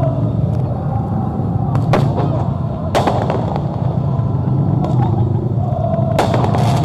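Fireworks and firecrackers going off in a few sharp bangs over the steady din of a dense crowd: a pair of bangs about two seconds in, another at about three seconds, and two more close together near the end.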